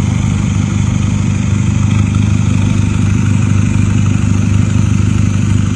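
A vehicle engine idling steadily in stop-and-go traffic: a constant low hum.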